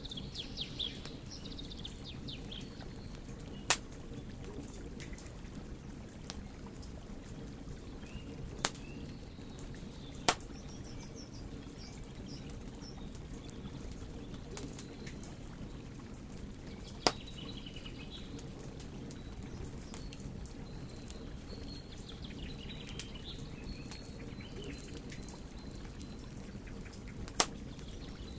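Wood fire burning with a steady low rumble and constant light crackling, broken by five loud sharp pops scattered through. Birds chirp faintly now and then.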